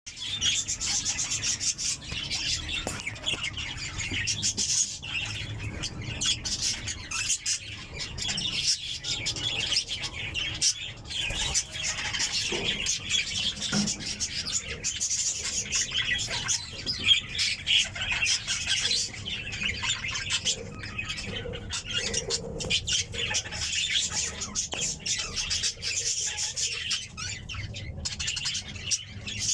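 Budgerigars chirping and chattering continuously in a dense, overlapping stream of short high chirps and squawks.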